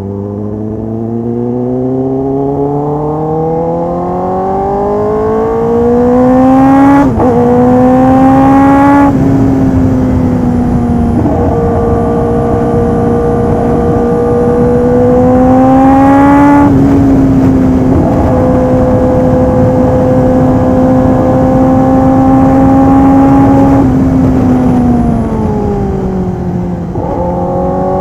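Kawasaki ZX-10R inline-four sport bike with a full aftermarket exhaust system, accelerating under load. Its engine note climbs steadily, with quick dips as it shifts up about a quarter and a third of the way through. It then holds a steady high note for long stretches with another brief shift dip in the middle, falls away as the throttle closes near the end, and picks up again.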